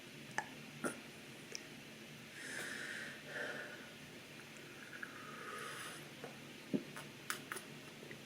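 Close-up breathing and mouth sounds from a person: a few short, noisy breaths or sniffs through the nose near the middle, with small scattered mouth clicks before and after.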